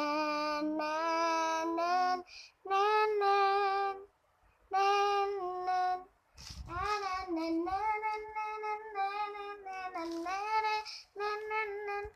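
A young girl singing on her own with no accompaniment, in short phrases of held and sliding notes broken by brief pauses.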